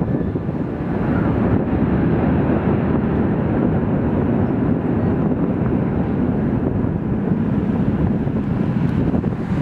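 Twin-engine jet airliner rolling out on the runway just after touchdown, its engines giving a steady rumbling roar, with wind buffeting the microphone.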